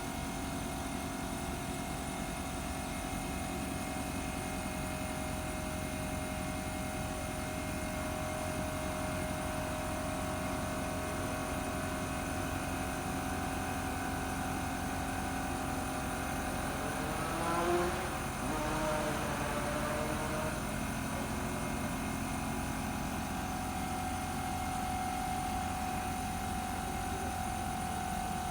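Changhong CSC-09Y3 air conditioner running with a steady hum and several steady tones, its outdoor fan motor dead so the compressor runs without cooling air. A brief louder noise with wavering pitch comes about two-thirds of the way through.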